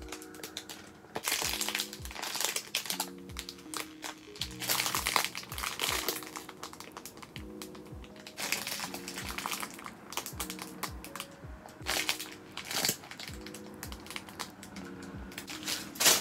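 Plastic wrapper crinkling in several bursts as hands squeeze a bread-shaped squishy toy through its bag, over background music.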